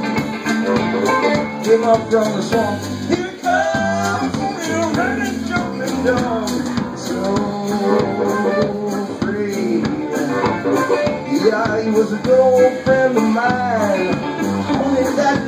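Live blues band playing: a harmonica played into a microphone, its notes bending up and down, over electric guitar, banjo and drums keeping a steady beat.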